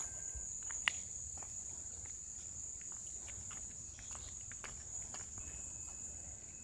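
Steady high-pitched chirring of an outdoor insect chorus, with faint scattered ticks and taps and one sharper click about a second in.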